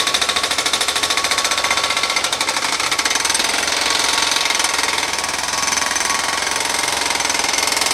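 Hydraulic breaker mounted on a JCB mini excavator, hammering steadily and rapidly into reinforced concrete to break out damaged concrete during bridge pier repair.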